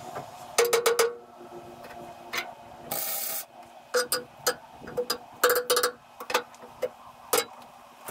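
Sharp metal-on-steel knocks and taps in quick clusters, each with a brief ringing note, from work on a steel engine bed. About three seconds in there is a short half-second hiss.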